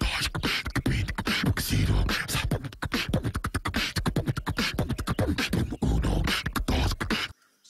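A person beatboxing, dubbed as a chipmunk's mouth noises: a fast, dense run of mouth-made drum beats, clicks and hisses that cuts off abruptly near the end.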